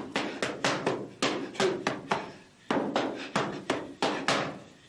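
Boxing gloves smacking focus mitts in quick combinations, about a dozen sharp pops with a short pause about halfway through.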